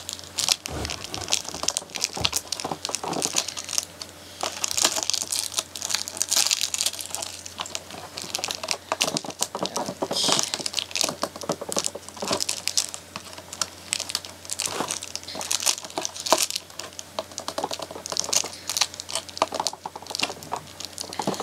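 Doll packaging crinkling and rustling with a rapid run of small clicks and rattles as a doll is worked loose from its box.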